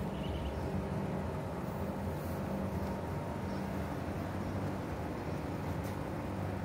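Steady low hum and rumble from rooftop air-conditioner outdoor units running, with faint steady tones over it.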